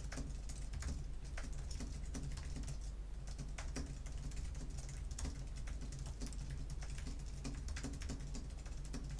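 Fast touch-typing on an Apple wireless Magic Keyboard with low-profile keys: a dense, continuous stream of light key clicks at about 144 words per minute.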